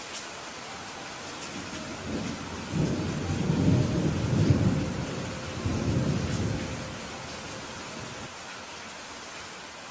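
Steady rain falling, with a long rolling thunder rumble that builds about two seconds in, swells twice and dies away by about seven seconds.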